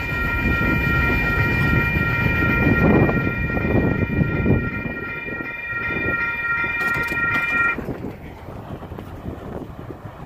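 Grade-crossing warning bell ringing in a steady, even rhythm over the fading rumble of a departing freight train. The bell cuts off abruptly after about eight seconds, as the crossing gate rises, leaving only the fainter train rumble.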